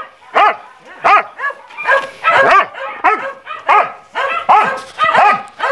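A dog barking over and over in short, high, rising-and-falling barks, a bit under two a second: protest barking at being left behind the gate as her owner goes out.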